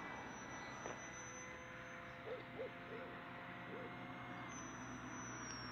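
Faint steady whine of a twin-engine RC model jet in flight, its pitch dropping slightly near the end. Around the middle, a bird gives four short, low hooting calls.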